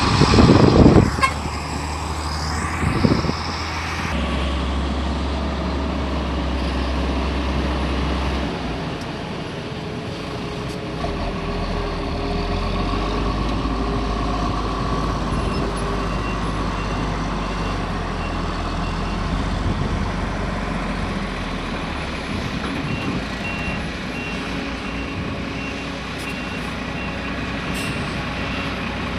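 Heavy diesel machinery running steadily, excavator and dump truck engines at a loading site, with a loud rushing burst about a second in. A faint, evenly pulsing beep comes in about halfway through.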